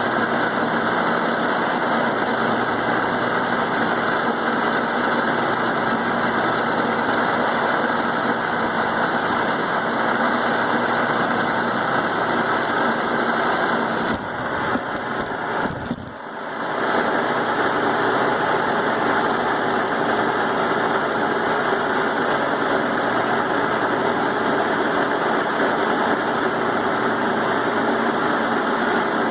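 Milling machine cutting steel with a roughing end mill: a steady grinding cutting noise over the spindle's hum. The noise briefly falls away about halfway through, then picks back up at the same level.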